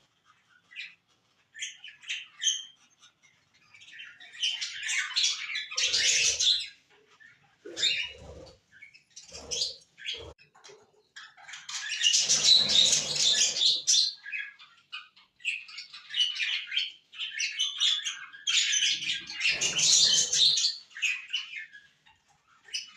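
A flock of small pet birds chirping and squawking in loud, busy bursts that come and go. A few short low thumps are mixed in.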